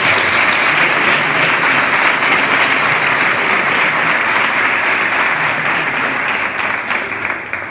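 Congregation applauding: dense, steady clapping from a seated crowd that dies away near the end.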